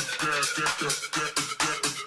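Upbeat electronic background music with a fast, steady beat of about four to five strokes a second.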